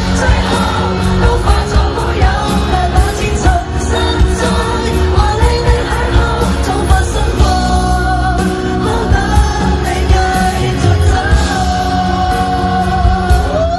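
Live concert recording of a Cantonese pop ballad in a large arena: a woman singing into a microphone with a band, the audience singing along in a mass chorus.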